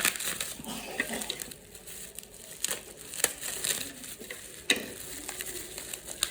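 Packaging being handled and opened by hand: crinkling and rustling with scattered sharp clicks and taps.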